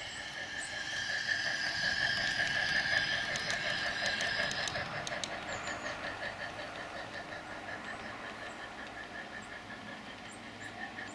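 Large-scale garden railway train, a model steam locomotive hauling freight cars, running along the outdoor track with a steady running sound and a fast, regular pulsing beat, louder in the first few seconds.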